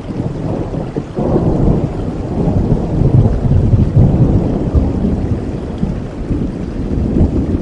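Thunderstorm: a low rolling thunder rumble over steady rain, swelling about a second in, loudest around three to four seconds, then easing off.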